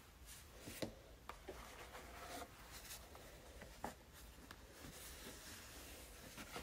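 Faint rustling of a white cloth dust pouch and tissue paper being handled, with a few light taps, the sharpest about a second in and near four seconds in.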